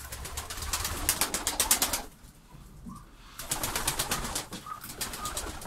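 Domestic pigeons in a loft, wings flapping in quick runs of beats twice, with a pause between, and some cooing.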